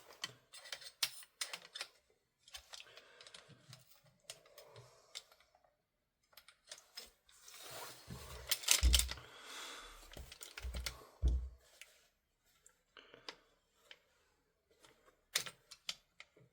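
Small airsoft gun parts clicking and tapping as they are handled and fitted together by hand. A scraping stretch comes about halfway through, with a few dull knocks after it.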